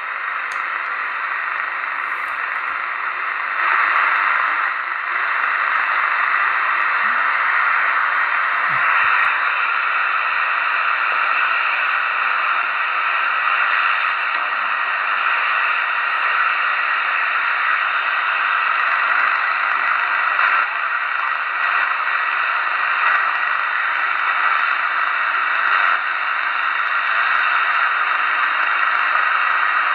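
Steady static hiss from a Ferris SSB-5000 CB radio's speaker, receiving band noise with no station on it while the channel selector is turned. It gets a little louder about four seconds in.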